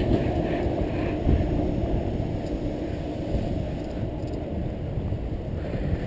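Wind rushing over the microphone of a handlebar-mounted GoPro HD Hero2 on a moving bicycle, mixed with tyre rumble on asphalt: a steady low rushing noise.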